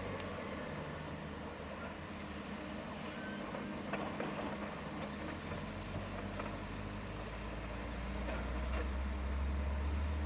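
Diesel engines of heavy earthmoving machinery running steadily, with a few sharp metallic clanks. Near the end a deep engine rumble grows louder as a machine works harder or comes closer.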